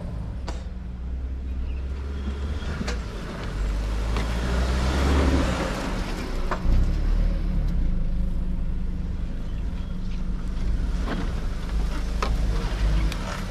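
Mahindra Thar driving over rough off-road ground: a steady low engine and drivetrain rumble with tyre noise, and scattered knocks and rattles. The noise swells for a moment around five seconds in.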